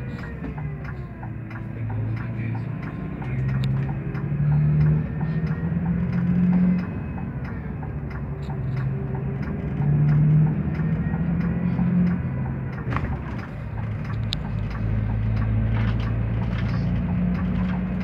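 Scania coach's diesel engine running under way, heard from the driver's cab. Its hum steps up and down in pitch every second or two as the revs change, over steady road noise and light cab rattles.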